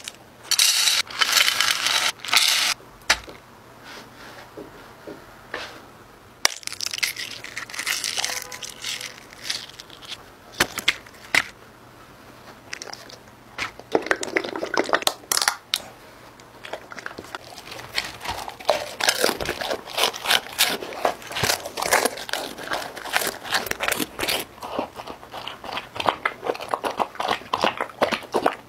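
Close-up ASMR food sounds: dry kibble and other foods tipped into glass dishes in loud crackly bursts, a small cup of white liquid poured out about halfway through, then a dense run of quick clicks that ends with a black Labrador lapping and eating from the dish.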